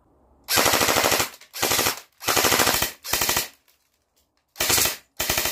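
Electric M4 airsoft rifle firing six short full-auto bursts, each a fast, even rattle of shots, with a pause of about a second before the last two. Its battery is not fully charged.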